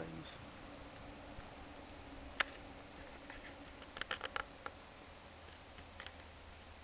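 Faint, steady chirping of insects in the open air, with a sharp click about two and a half seconds in and a quick run of clicks around four seconds in.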